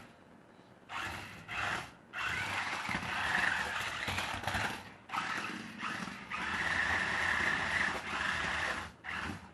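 Small electric motors of a toy RC stunt car whirring in bursts as it is driven. There are two short bursts, then two long runs of several seconds each, with a steady high whine in the longer runs.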